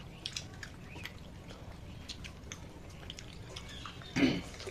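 Small, wet clicking and squishing as fingers pick apart a piece of fried fish, then a short, louder mouth sound about four seconds in as a piece is put into the mouth.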